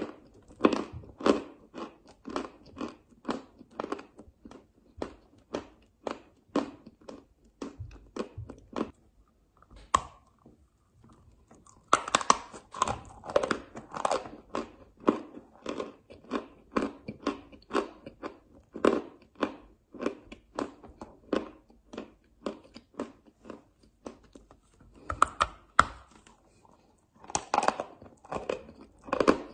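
Close-up crunching and chewing of a lump of chalk: a steady run of crunchy chews, about two to three a second. There is a short pause about ten seconds in. Louder crunchy bites follow about twelve seconds in and again near the end.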